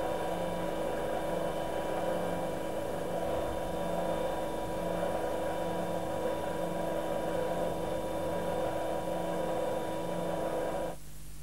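Hydraulic power unit running: a steady machine hum with several steady tones and a faint, regular low pulsing. It cuts off abruptly near the end, leaving a quieter hum.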